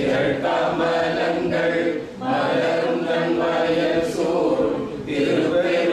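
A man chanting a Tamil devotional hymn solo and unaccompanied, in long, held melodic phrases. He breaks off briefly about two seconds in and again about five seconds in.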